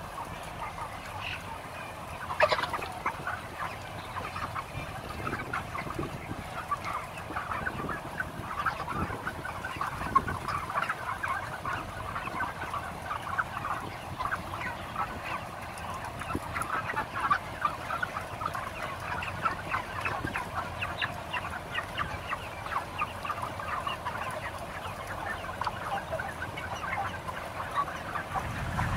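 A large flock of 35-day-old broiler chickens clucking and calling over one another without a break, over the steady hum of the house's exhaust fans. One louder, sharp sound stands out about two and a half seconds in.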